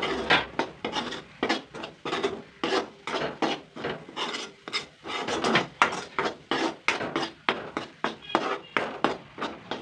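Thick masala paste being stirred and scraped around a pan, a rasping scrape repeated about two or three strokes a second.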